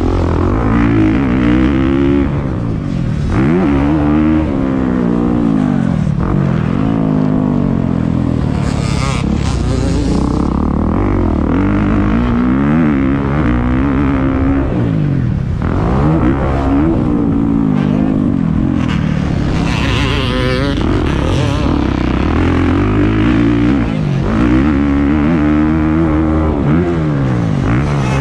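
Motocross dirt bike engine heard from the rider's helmet, revving up and dropping back again and again, roughly every two to three seconds, as it accelerates, shifts and slows around the track.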